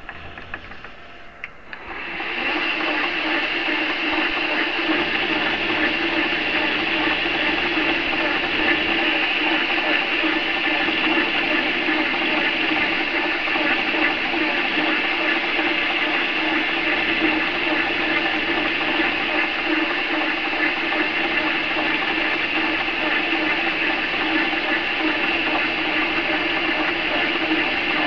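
Grizzly variable-speed metal lathe starting up about two seconds in after a click, then running steadily with its chuck spinning: a continuous hum with a high whine over it.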